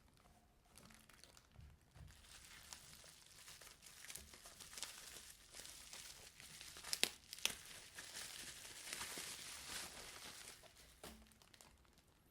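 Faint rustling and crinkling of packaging as the Logitech Z110 speakers are unwrapped by hand, with a couple of sharp clicks about seven seconds in.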